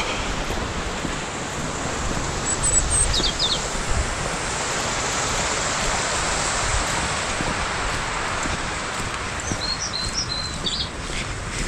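Steady rush of wind across the microphone, with a small bird chirping in short high notes twice: about three seconds in and again near the end.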